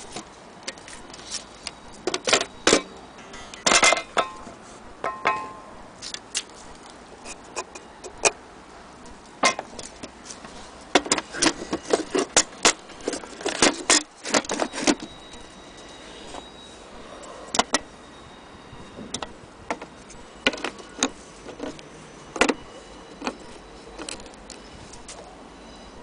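Handling noise from an old wooden wall clock case: irregular clicks, knocks and small rattles, with two busier runs of quick clicks, a few seconds in and around the middle.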